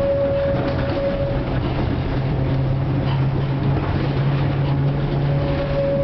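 FVV CSM-4 articulated tram heard from inside the passenger saloon while running: a steady rumble of wheels on the rails with a low hum that grows stronger partway through. A higher steady whine fades out about a second and a half in and comes back near the end.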